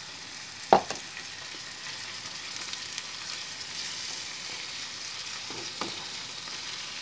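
Shrimp sautéing in a frying pan with a little water just added, sizzling steadily as a wooden spatula stirs them. The spatula knocks against the pan twice, loudly about a second in and more softly near the end.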